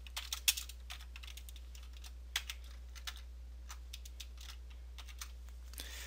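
Computer keyboard keystrokes: a quick run of taps in the first second, then single clicks spaced out, over a faint steady low hum.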